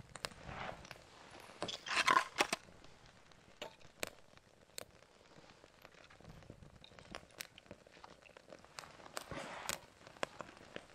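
A freshly lit kindling fire crackling with scattered sharp snaps, mixed with the wooden clicks and crunches of split kindling sticks being handled and laid on it. A louder rustling crunch comes about two seconds in and another near the end.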